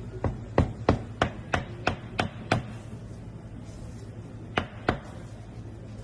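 A knife chopping mango on a cutting board: a run of about eight sharp chops, roughly three a second, then a pause and two more chops near the end. A steady low hum runs underneath.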